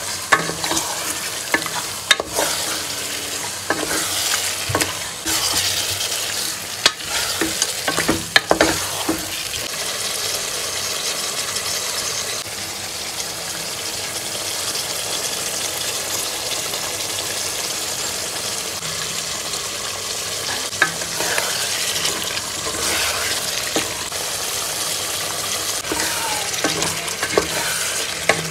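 Duck pieces frying in an onion-and-spice masala in a pan, sizzling steadily. A spatula stirs them, clicking and knocking against the pan through the first several seconds and again near the end.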